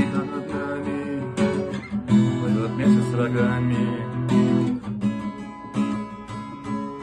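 Acoustic guitar strummed in a steady rhythm of chords, an instrumental passage of the song with no singing.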